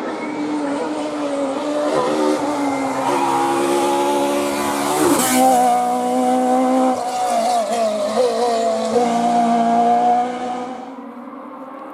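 Rally car engine revving hard and changing pitch through gear shifts as the car passes close by, loudest about five seconds in. The sound drops away suddenly near the end.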